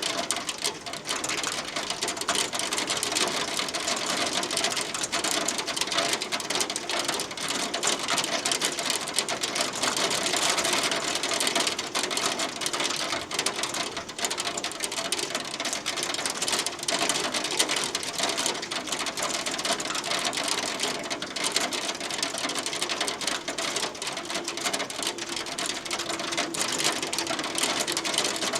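Hail falling steadily: a dense, continuous clatter of countless small hailstones ticking on a hard surface.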